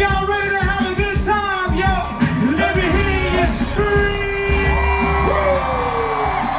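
Live music through a stage PA: a man singing into a microphone over a backing track with heavy bass, holding a long note about four seconds in, with a few whoops from the crowd.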